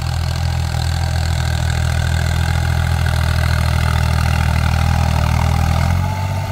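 Small farm tractor's diesel engine running steadily under load as it pulls a furrowing plough through a field. The engine note drops and changes near the end.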